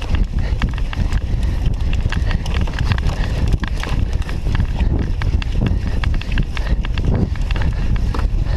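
Cyclocross bike jolting over a rutted, muddy grass track: a steady low rumble with a rapid, irregular clatter of knocks and rattles as the bike bounces over the ruts.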